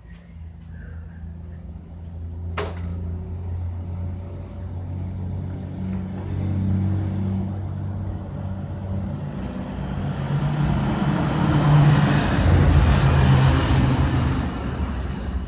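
An engine running steadily with a low hum, growing louder about ten seconds in along with a faint high whine, then easing slightly near the end.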